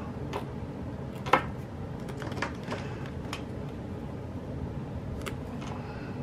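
Light clicks and taps of hands handling paper stickers and planner pages, about five scattered ticks with the sharpest a little over a second in, over a steady low background hum.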